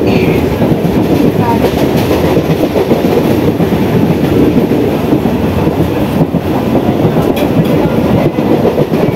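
Inside a three-phase MEMU electric train coach running at about 85 km/h and gaining speed: a steady, loud rumble of the wheels on the rails. A few faint clicks come in the second half.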